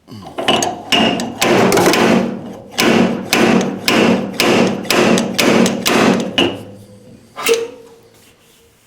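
Dent-pulling blows on an MGA body panel being pulled out: about a dozen sharp metal strikes, roughly two a second, then a pause and one last strike with a brief ringing tone near the end.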